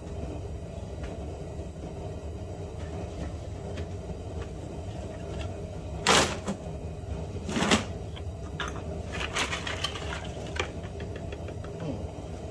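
Hand-handling noises: a few sharp clicks and knocks of small objects being moved or set down, the loudest about six seconds in and another near eight seconds, then lighter ticks. A steady low hum runs underneath.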